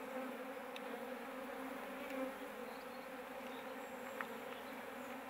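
Western honey bees (Apis mellifera) buzzing in an opened hive: a steady, even hum of many bees, with a couple of faint ticks.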